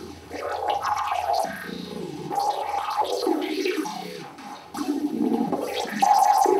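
Experimental live-electronic performance sound: a rough, grainy noise texture that shifts in surges. It dips briefly about two-thirds of the way in, then comes back louder near the end.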